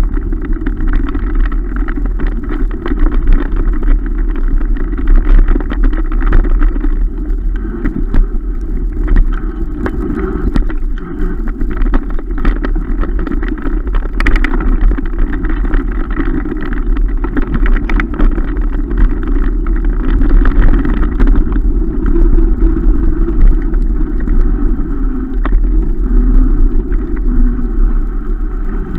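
Steady rumble and wind buffeting on the microphone of a camera carried on a mountain bike riding fast along a rough, muddy dirt forest track, with a few brief knocks from the bumps.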